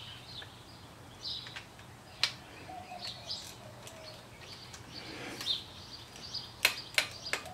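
Small birds chirping faintly now and then over a low steady hum. Near the end come a few sharp metallic clicks of a half-inch socket being worked onto a brass oil-pressure fitting.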